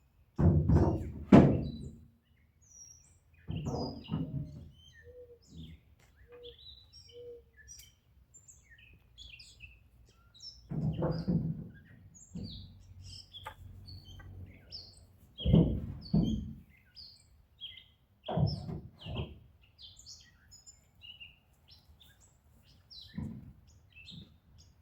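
Cut pieces of pressure-treated 2x2 lumber knocking and thudding as they are handled and set in place, in about six short clusters of knocks. Small birds chirp throughout.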